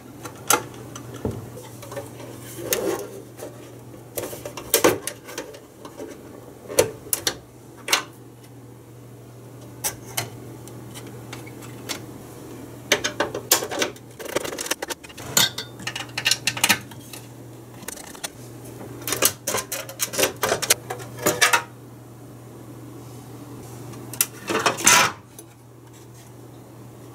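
Scattered clicks, clinks and clanks of metal cover plates, screws and cable connectors being handled as a stainless-steel payphone is taken apart by hand, with a cluster of louder clatters near the end. A steady low hum runs underneath.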